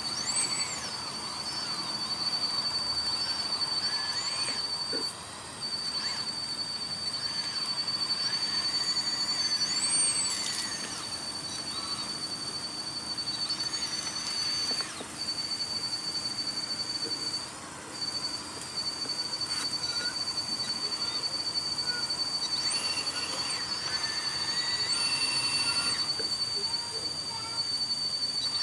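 1:16 Komatsu PW180 RC model wheeled excavator working: a steady high-pitched electric motor whine that cuts out briefly a few times. Over it come repeated shorter whines that rise, hold and fall as its other motors start and stop.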